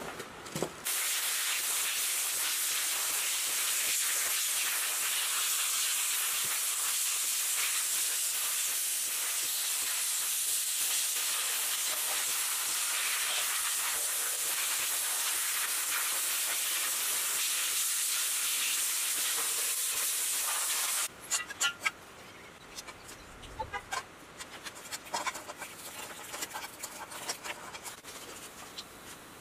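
Sandblasting gun stripping rust from a small round engine part: a steady hiss of air and grit that cuts off suddenly about two-thirds of the way through. After it come quieter scattered clicks and light knocks as a piston is cleaned by hand in a tub of liquid.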